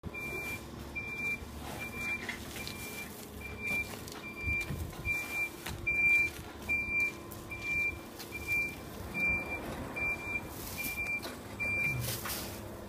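Vehicle reversing alarm beeping on a single steady tone, about five beeps every four seconds, stopping shortly before the end.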